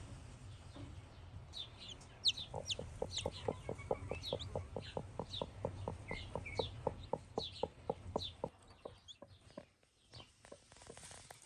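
Broody hen clucking softly over a hatching clutch in a fast, even run of short low clucks, about five a second, that stops about nine seconds in. Newly hatched chicks peep over it with high, falling cheeps.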